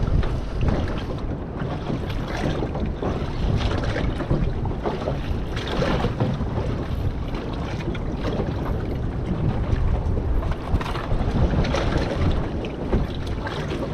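Strong wind rumbling on the microphone of a small boat rocking in a choppy sea, with waves washing around the hull.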